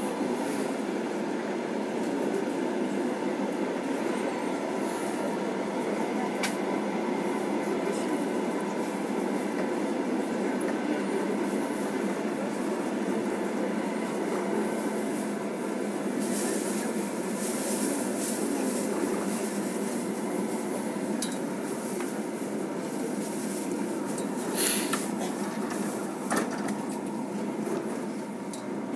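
Passenger train carriage running along the track, heard from inside: a steady rumble of wheels on rails, with a couple of sharp knocks near the end.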